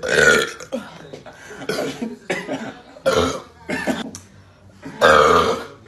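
A woman burping several times in a row, short burps with a longer, louder one about five seconds in.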